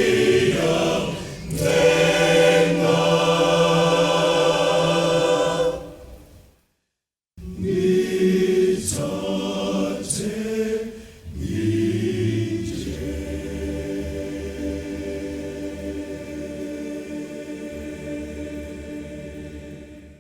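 Choir singing a gospel song in close harmony. The sound cuts out completely for about a second a third of the way in, then the singing returns and closes on a long held chord that slowly fades away.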